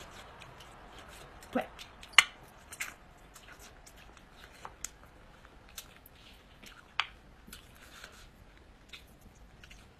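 A person eating sauce-braised soft-shelled turtle by hand: scattered wet mouth clicks, smacks and chewing. The sharpest click comes a couple of seconds in, with another about seven seconds in.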